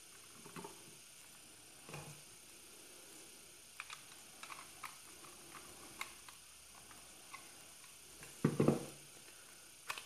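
Small clicks and scrapes of a screwdriver and wire working a contactor's A2 coil terminal, with light handling of plastic electrical parts. A louder knock and rattle about 8.5 s in, and a sharp click near the end.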